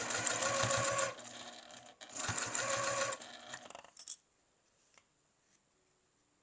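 Vintage sewing machine stitching in two short runs of rapid, even needle strokes. It stops after about three and a half seconds, a sharp click follows, and then it is quiet.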